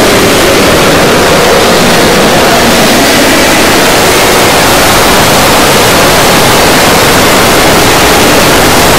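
Audio of hundreds of video clips played on top of one another, merging into a steady, loud wash of noise in which no single voice or tune stands out.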